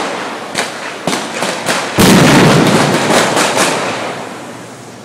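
Staged gunfire from a police drill: scattered sharp shots, then about two seconds in a much louder, dense volley that rings and echoes and dies away over the next couple of seconds.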